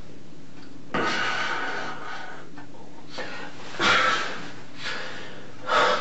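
A distressed man breathing heavily. There are three loud breaths: a long, wheezy one about a second in, then two short, sharp ones later.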